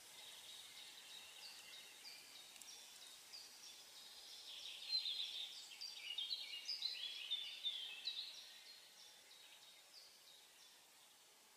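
Small songbirds chirping and twittering in high, short calls. About halfway through, the calls crowd into a busy, louder burst of rapid chirps, then thin out again.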